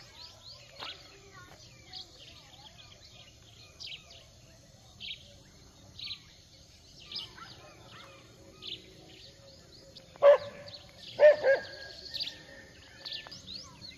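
Birds calling: a short high chirp repeated roughly once a second, with two louder, lower calls about ten and eleven seconds in.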